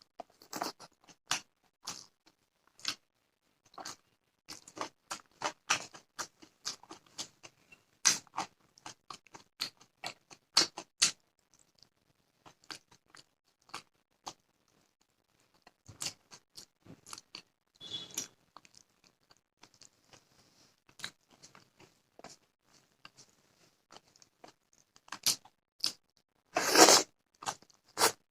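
Close-up eating sounds: wet chewing, lip smacks and mouth clicks from eating fish curry and rice, in irregular short bursts, with a louder crunchy cluster near the end.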